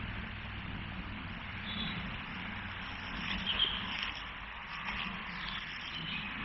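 Outdoor woodland ambience: a steady hiss with a low rumble, and a few faint, short, high chirps.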